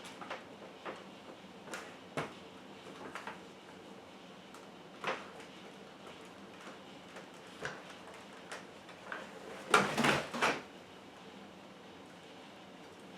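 Irregular clicks and knocks of hard plastic vacuum-cleaner parts being handled and fitted, with a quick cluster of louder knocks about ten seconds in.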